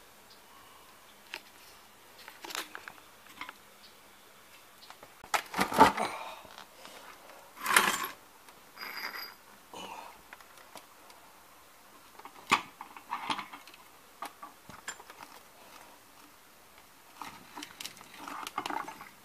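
Scattered metallic clinks and knocks of a coil spring compressor and tools being handled on a car's rear strut assembly, with two loud clanks about six and eight seconds in.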